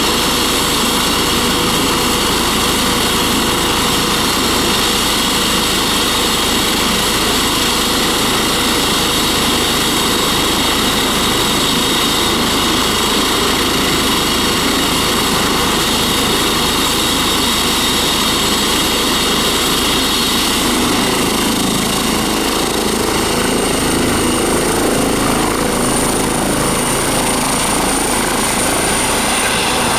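Eurocopter EC135 T2+ helicopter running on the ground, its twin turboshaft engines giving a steady turbine whine over the rotor noise. About twenty seconds in, a high whine rises in pitch and the rotor sound changes as power comes up for lift-off into a hover.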